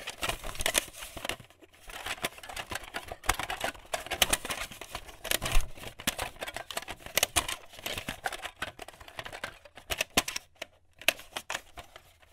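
Static-style glitch sound effect: dense, irregular crackling and clicking, with a few brief gaps, the loudest near the end.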